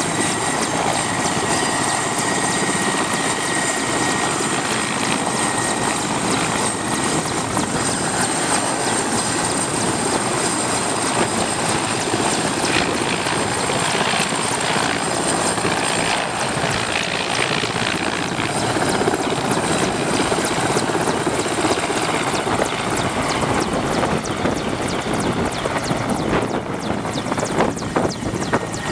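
Mi-8 helicopter's twin turboshaft engines and main rotor running at speed, with a steady high turbine whine over the dense rotor and engine noise.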